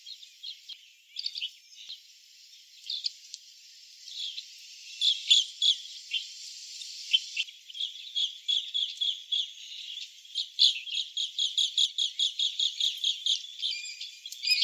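Asian green bee-eaters calling: scattered high chirps, then a quick run of short repeated trilling notes through the second half.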